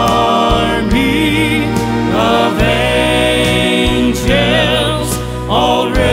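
Background music: a slow Christian song, with wavering held sung notes over steady instruments.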